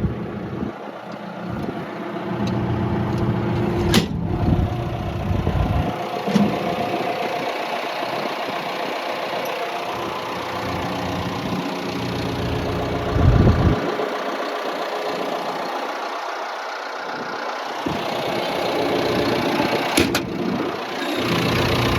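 John Deere 4.5-liter diesel engine of an excavator idling steadily and evenly, judged to be running great. A few sharp knocks cut through it: one about 4 seconds in and two close together near the end.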